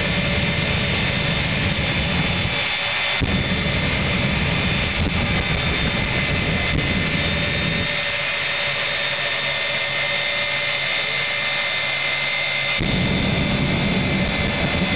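Jet engine of a jet-powered 1957 Chevy semi truck running with a steady turbine whine under a loud roar as it shoots flames. The low roar cuts out briefly about three seconds in and again for about five seconds in the middle, leaving the whine alone, then comes back near the end.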